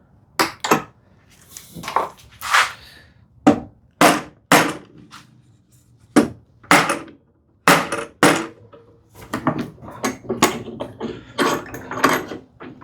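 Irregular sharp knocks and clanks, a dozen or more, as bar clamps are loosened on a glued mortise-and-tenon frame and a hammer taps the frame to bring a misaligned joint into line.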